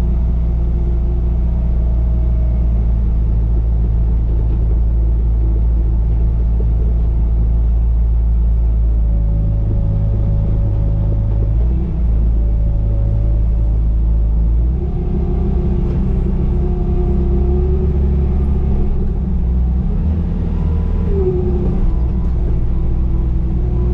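Bobcat T595 compact track loader's diesel engine running steadily while grading, with higher tones that slide up and down as the machine works; the sound shifts about halfway through.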